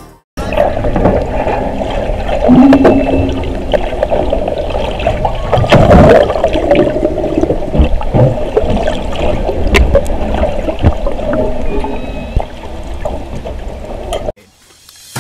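Whale calls heard underwater: a few brief moaning tones and a high squeal over a steady rush of water and bubbles on the underwater microphone, with a couple of sharp knocks.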